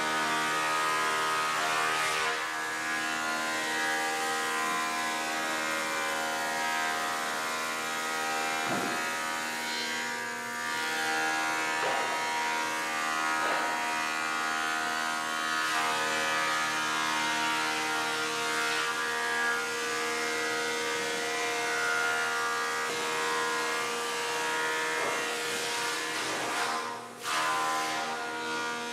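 Delta DC-580 thickness planer with a 5 hp motor running steadily while planing red oak boards, a constant many-toned whine from the cutterhead and motor, broken by a few short knocks.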